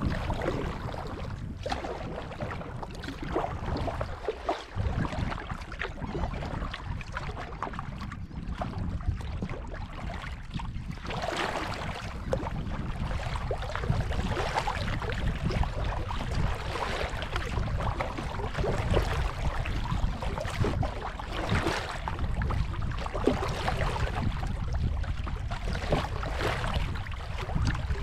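Kayak paddle dipping and splashing in calm water, stroke after stroke, louder after about ten seconds, with wind rumbling on the microphone.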